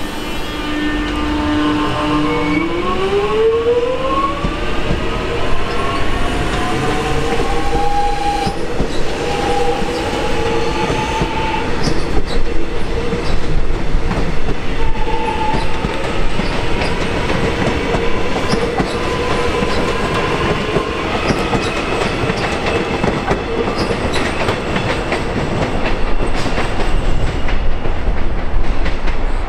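Metro X'Trapolis electric multiple unit running through the junction. Its traction motors give a whine that climbs steeply in pitch for several seconds as the train accelerates, then holds steady tones. Wheels click and clatter over the points.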